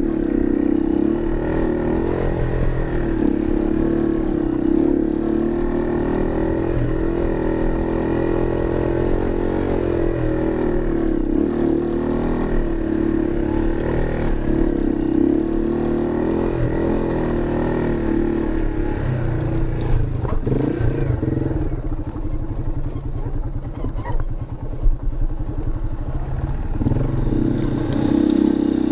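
Small Yamaha dual-sport motorcycle's single-cylinder four-stroke engine running at low trail speed, its pitch wavering with the throttle. About two-thirds of the way through, the note drops to a lower, slower putter for several seconds, with a few sharp knocks, then picks up again near the end.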